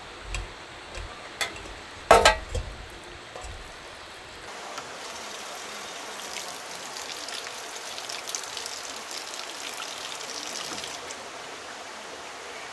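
A few knocks and clatters of things being handled, then an even rush of running water with a fizzing, splashing edge.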